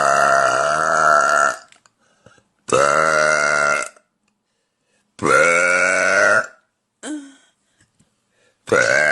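A woman burping: three long, drawn-out burps of about a second and a half each, with short silent gaps between them, and a fourth beginning near the end.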